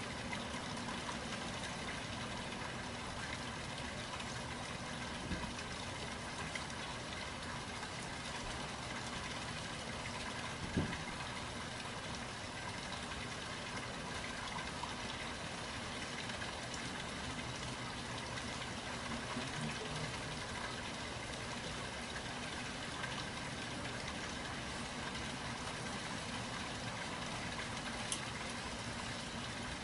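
Steady, even background hiss with faint steady hum tones, broken only by a few faint clicks and a soft knock about eleven seconds in.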